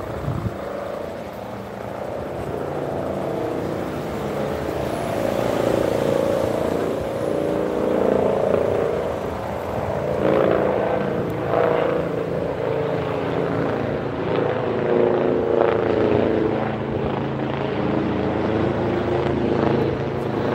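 Helicopter flying overhead, a steady drone of its rotor and turbine that swells over the first several seconds and then holds.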